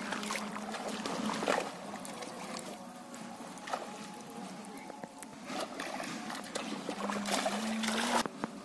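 Shallow pond water splashing and sloshing as a person wades and drags a cast net in through the water. The splashes come on and off, and the biggest are near the end.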